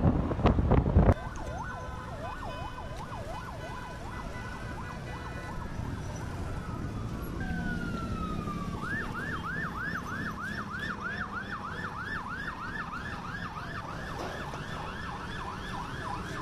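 A loud rumble with wind buffeting the microphone cuts off about a second in. Then emergency-vehicle sirens sound, several at once: first a fast up-and-down warble, then from about nine seconds a rapid repeating rising yelp.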